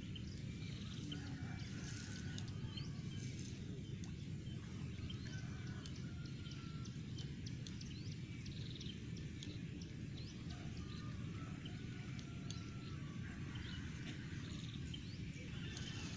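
Outdoor lakeside ambience: a steady low wind rumble on the microphone, with scattered small bird chirps throughout.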